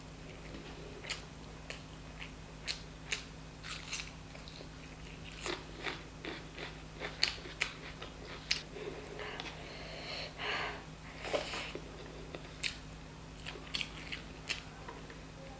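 Close-miked chewing of chicken curry and rice, with sharp wet mouth clicks and smacks at irregular intervals.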